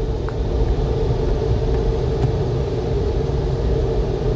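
A steady, loud mechanical drone heard inside a car's cabin: a low rumble with a constant hum over it, which cuts off suddenly at the end.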